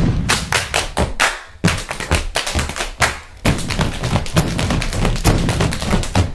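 Body percussion: a fast rhythm of stomps and hand strikes, sharp taps and thumps. The strokes come separately at first and run together into a dense stream from about three and a half seconds in.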